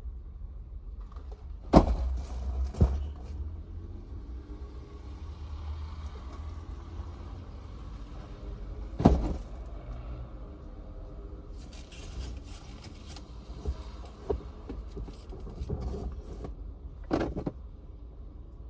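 Thuds and knocks of shopping being loaded into an SUV's rear cargo area, heard from inside the cabin. There are loud thumps about two seconds in, again around nine seconds and near the end, with smaller knocks between, over a steady low rumble.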